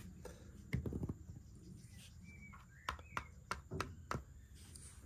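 Board-game pieces tapped quickly from field to field across a Mensch ärgere dich nicht board: a string of light, uneven clicks and taps.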